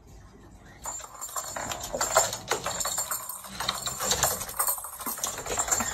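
Quick, irregular clattering and knocking of a cat playing on a wooden floor, paws and toys striking the boards, starting about a second in.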